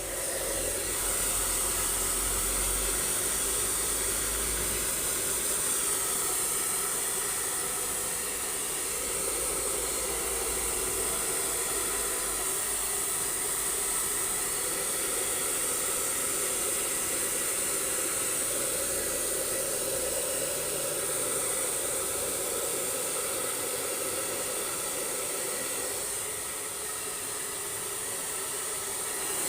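Hair dryer blowing steadily, a constant rush of air with a high hiss on top.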